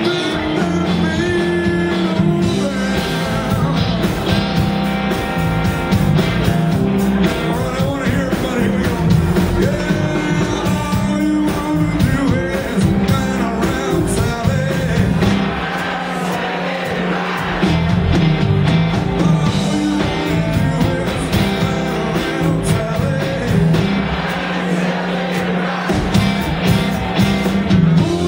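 Live rock band playing: electric guitars, drums and keyboard at a steady, loud level.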